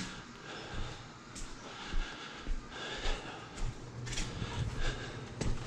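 A person breathing hard, with scattered light knocks and rustles.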